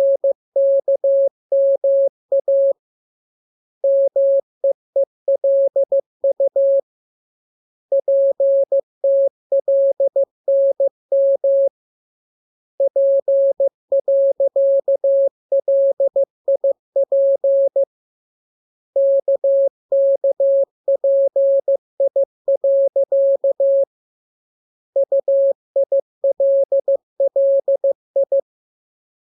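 Morse code practice sent as a single steady mid-pitched beep tone, dots and dashes keyed in quick succession, in groups of letters with pauses of about a second between groups.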